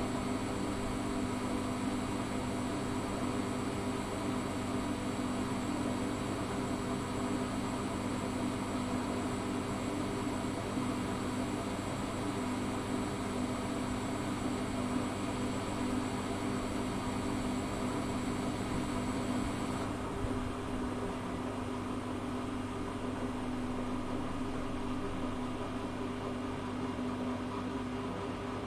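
Zanussi FA623 washing machine running with a steady hum and several constant tones; a high whine cuts off about 20 seconds in.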